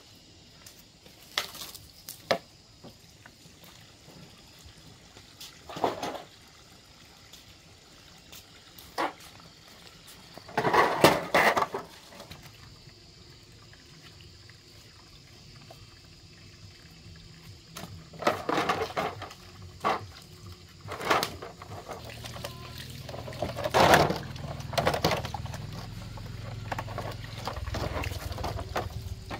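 Water from a garden hose splashing onto plastic motorbike body panels as they are washed, in irregular bursts with short knocks of the panels being handled. Water runs more steadily over the last third.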